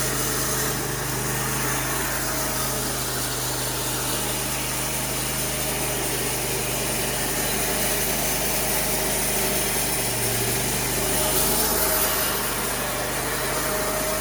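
Band sawmill's engine running steadily at idle, with a slight step up in pitch near the end.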